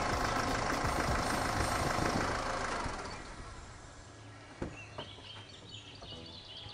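Land Rover Freelander 2 pulling up, its running sound fading out over about three seconds, then a sharp click and a softer knock as its driver's door is opened.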